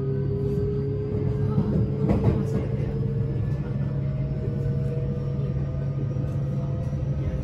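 JR West 321 series electric train's Mitsubishi IGBT VVVF inverter and traction motors whining, the tones climbing slowly in pitch as the train gathers speed. Under them run a steady rumble and hum of wheels on track, with a brief clatter about two seconds in, heard from inside the passenger car.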